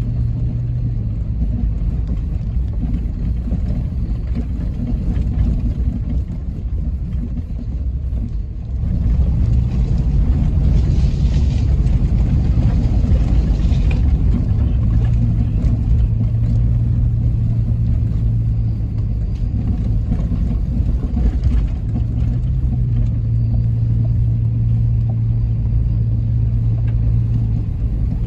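Car driving: a steady low engine and road rumble that grows louder about nine seconds in.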